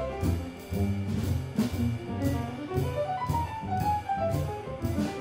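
Live jazz quartet playing: a trumpet melody whose notes climb in the middle, over grand piano, plucked double bass, and a drum kit keeping a steady cymbal beat.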